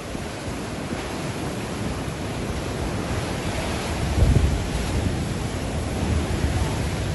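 Rough storm surf breaking and washing onto the shore in a steady roar, with wind buffeting the microphone. A louder low rumble swells about four seconds in.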